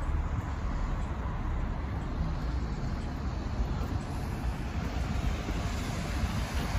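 City street ambience: steady road traffic noise from passing cars, a continuous rumble and hiss that grows brighter in the second half.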